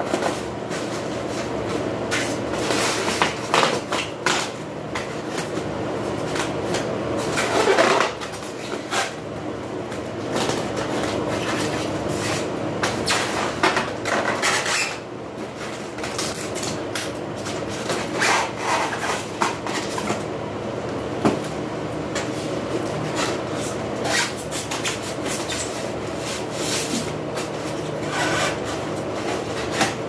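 Bubble wrap crinkling and rustling as it is picked at and peeled off a packed appliance part, with irregular rubs and scrapes. A steady mechanical hum runs underneath.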